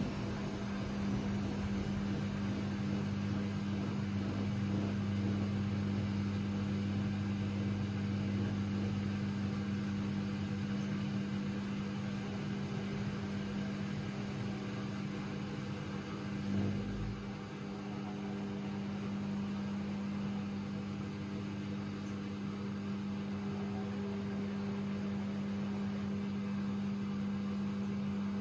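AEG Lavamat 6610 washing machine running with a steady mechanical hum. There is a single knock about two thirds of the way through, after which the lowest part of the hum falls away.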